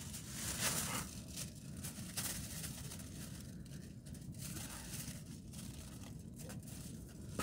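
Aluminium foil being pulled off the roll and torn, crinkling in irregular rustles, over a steady low rumble.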